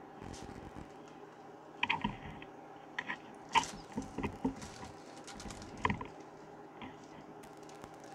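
Irregular short clicks and crinkles of aluminium foil and a plastic marinade injector as hands press and inject pieces of meat on a foil-lined baking sheet.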